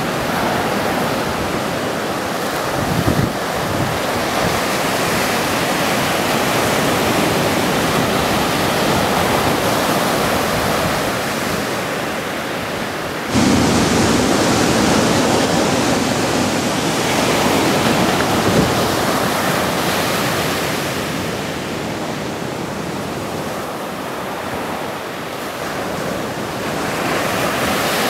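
Ocean waves breaking in heavy shorebreak: a steady rush of surf and whitewater. About thirteen seconds in it turns abruptly louder.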